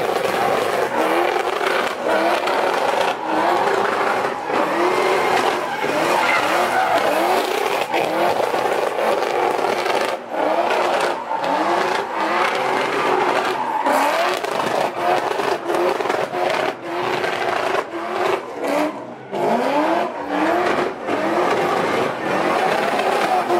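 Pontiac GTO's V8 revving hard during donuts, the revs climbing again and again in short rising pulls with brief drops between, over the squeal of spinning rear tyres.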